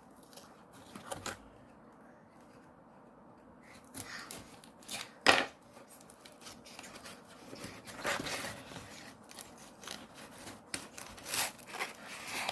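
A cube's packaging box being worked open by hand: scattered rustling, scraping and clicks, with one sharp snap about five seconds in.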